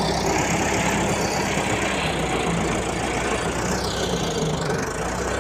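An engine running steadily at idle, like a tractor, with a steady low hum and a slow sweeping hiss above it.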